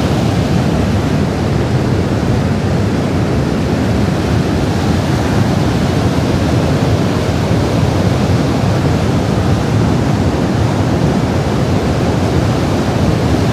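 Mountain stream in flood rushing and churning white over boulders: a loud, steady rush of water.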